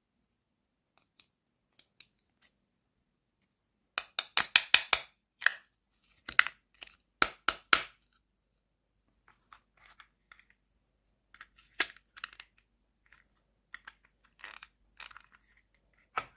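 Unboxing of a miniature plastic toy kitchen set: a string of short crinkles, clicks and rustles from plastic packaging and small plastic pieces being handled. A quick burst of them comes about four seconds in, with sparser, quieter ones later.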